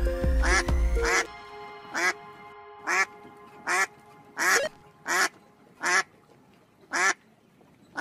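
Background music with a heavy bass stops about a second in. A run of short, evenly repeated calls follows, each a brief note with a bending pitch, about one a second.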